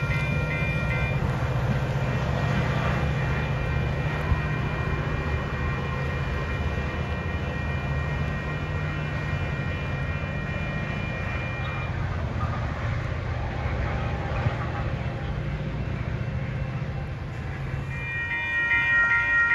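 A train passing with a steady low rumble while railroad crossing bells ring with a rapid, pulsing chime. The bells are loud at first, drop back under the train, and ring out loudly again near the end after the rumble dies away.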